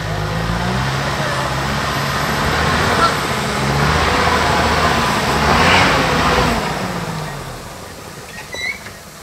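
Mitsubishi L200 pickup's engine revving under load as it claws up a steep mud slope, its tyres churning through the mud. The engine note rises and falls, swells to its loudest about six seconds in, then dies away about eight seconds in.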